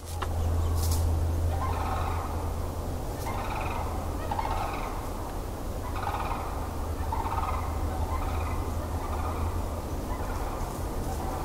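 Sandhill cranes calling over and over, about one call a second, starting about a second and a half in, over a steady low hum.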